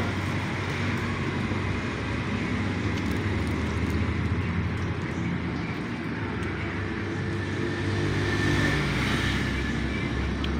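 Steady low hum of road traffic and running vehicle engines, growing slightly louder about eight seconds in.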